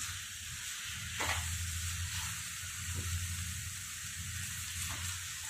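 Aloo methi sabzi sizzling steadily in a kadhai as it cooks down dry for its last few minutes, with a spatula scraping through it about three times.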